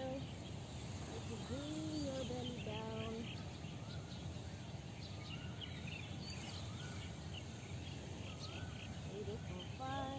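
Outdoor ambience: a steady low background noise with small birds chirping and giving short whistled calls throughout, and a few lower, longer calls about two to three seconds in and again near the end.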